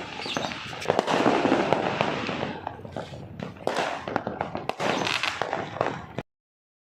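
Fireworks going off in a dense barrage of bangs and crackles, cutting off suddenly about six seconds in.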